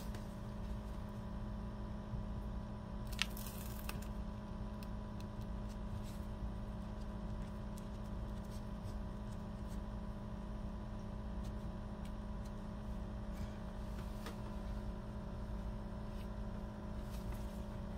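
Steady background hum, with a brief crinkle of a plastic sample packet being handled about three seconds in and a few light clicks near the end, as the packet is heat-sealed with a hair straightener.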